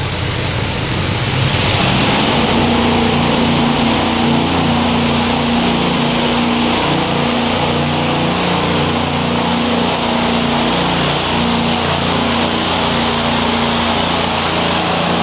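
Small-engined pulling tractor running at high, steady revs under load as it drags a weight-transfer sled. The engine climbs in the first two seconds, then holds.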